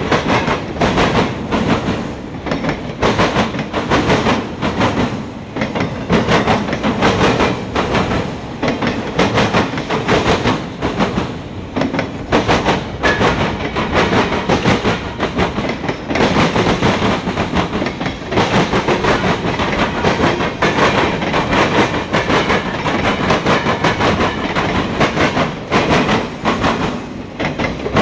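Freight train's coil cars and autorack cars rolling past close by: a steady loud rumble with rapid clickety-clack of steel wheels over the rail joints.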